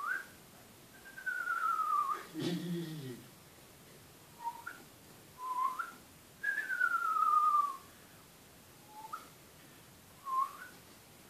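A person whistling by mouth: three times a short rising note followed by a long falling one, with short rising chirps in between. A brief vocal sound comes about two and a half seconds in.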